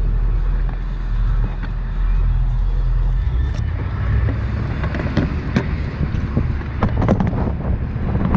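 Low, steady vehicle rumble with wind buffeting the microphone. From about halfway through there is a run of short rattling knocks.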